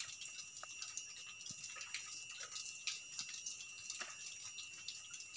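Quiet forest ambience: a steady high insect drone with scattered faint ticks and drips.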